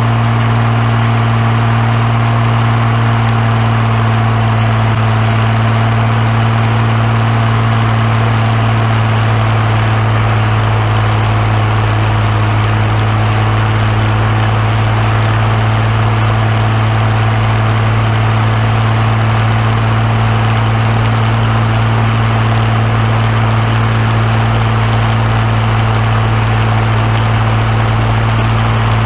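Rolls-Royce Merlin 20 V12 aero engine on a ground-running stand, running at a steady idle with its three-bladed propeller turning, a loud, even drone with no change in speed.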